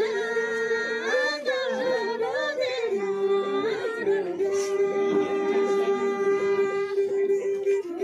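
Women singing a Karmarong pulu dance song in unison, unaccompanied, in long held notes joined by short glides between pitches.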